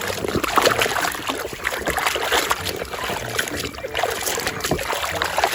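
Water splashing and trickling as mud is rinsed off a plastic toy.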